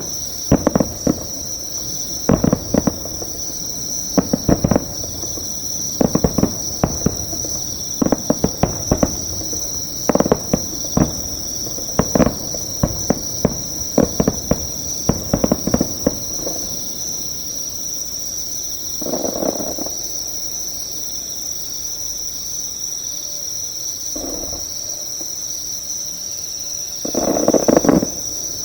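A steady high insect trill close by, with distant fireworks over it: rapid crackling bursts for roughly the first sixteen seconds, then a few separate rumbling booms, the loudest near the end.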